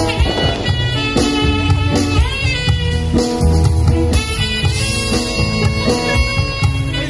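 A small live band playing amplified music through stage speakers: guitar and keyboard over a heavy bass line, with a lead melody that slides between notes.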